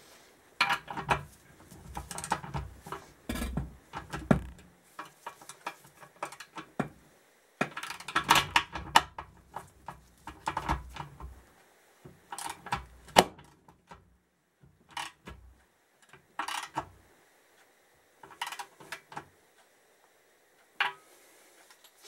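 Irregular runs of metallic clicks and clanks from a socket ratchet and spanner turning a threaded-rod bearing puller, pulling new bearings into the swingarm pivot, with steel spacers clinking on the rod, broken by short pauses.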